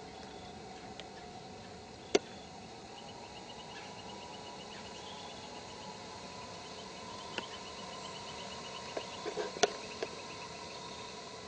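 Steady outdoor background hiss with a fast, high chirping trill for a few seconds in the middle. A sharp click comes about two seconds in, and a louder cluster of clicks near the end.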